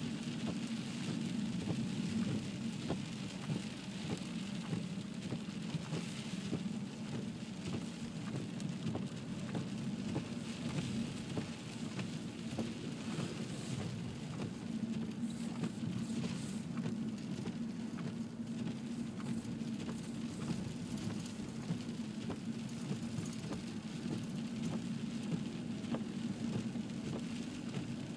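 A car driving through deep snow, heard from inside the cabin: a steady low drone from the engine and tyres, with a constant fine crackling of snow under the wheels.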